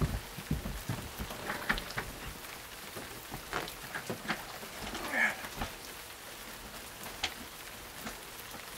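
Steady rain hiss, with scattered knocks, clicks and rustling as someone rummages by a desk, and a brief squeak about halfway through.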